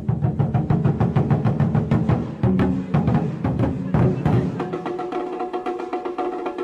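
Tanggu drums (Chinese barrel drums) beaten in a rapid, dense rhythm with deep, heavy strokes. About four and a half seconds in the deep strokes stop and lighter, higher-pitched drumming carries on.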